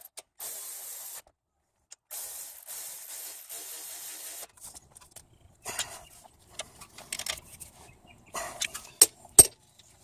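Milwaukee cordless electric ratchet driving a brake caliper bolt, running in two short stretches, the second about two and a half seconds long. Then scattered light clicks and knocks of tools and parts being handled, with two sharp clicks near the end.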